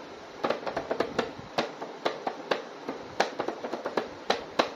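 A hand handling and tapping a boxed plastic action figure's window-box packaging: a string of sharp, irregular clicks and taps, some louder than others, over a low steady hiss.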